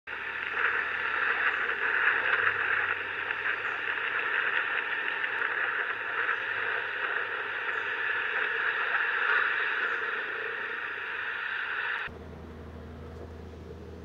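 A loud, steady hiss like radio static cuts off abruptly about twelve seconds in. After the cut, only the low hum of a motorcycle engine is left.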